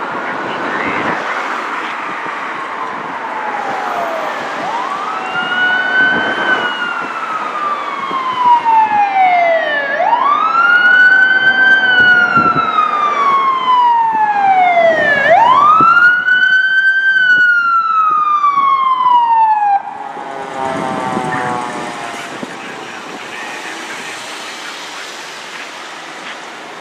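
Fire department emergency siren wailing: each cycle rises quickly, then falls slowly over about five seconds. It grows louder as the apparatus approaches and cuts off suddenly with about seven seconds left, leaving traffic and engine noise.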